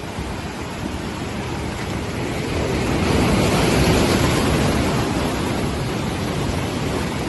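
Ocean surf breaking against a rock ledge, a wave surging and washing over the rocks about three seconds in, then easing back.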